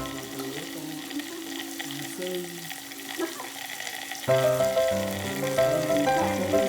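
Pork belly sizzling as it grills, a steady hiss. Background music sits low under it, then comes back up about four seconds in.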